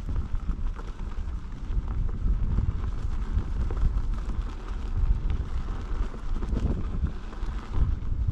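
Wind buffeting the microphone, gusting unevenly, over the low rumble of an electric unicycle rolling across a rough dirt trail.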